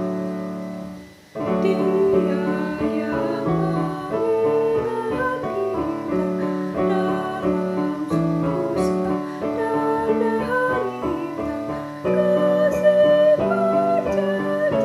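A hymn played on piano or keyboard with a woman singing along. The music fades out a second in, then starts again.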